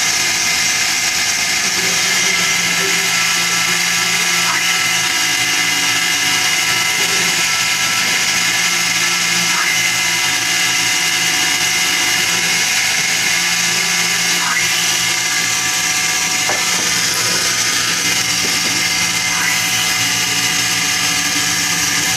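Benchtop mini mill's spindle running steadily with a high whine while drilling an aluminium block, with a few faint ticks along the way.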